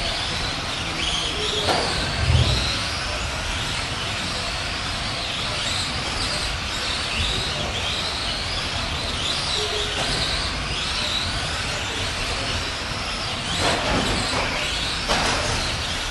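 Several Tamiya Euro Truck radio-controlled trucks racing, their electric motors and gears whining up and down in pitch as they speed up and slow down. A low thump comes about two seconds in and two knocks near the end.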